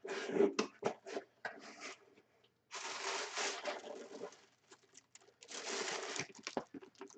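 The seals of a sealed memorabilia box popping as it is opened: a quick run of small crackling clicks, then two longer stretches of cardboard and packaging rustling and scraping.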